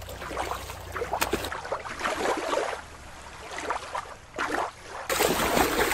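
Water splashing and sloshing as an orca breaches and lands in a show pool, with a heavier splash about four and a half seconds in. For the first second and a half, shallow water laps at a rocky shore over a low steady rumble.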